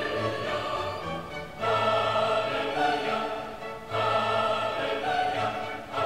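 Background music in a choral and orchestral style: sustained layered tones in phrases that begin afresh about every two seconds.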